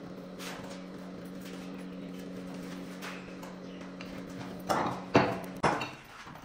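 A steady low mechanical hum, then three loud metal clanks about half a second apart as a pipe wrench twists a red-hot bundle of welding wire held in a steel bench vise.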